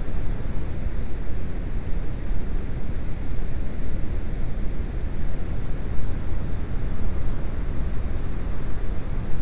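Steady low rumbling background noise, even and unbroken, with no clear individual events.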